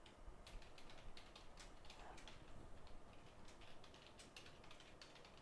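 Faint, irregular light clicks and ticks of small tools being handled while solder paste is prepared for reballing.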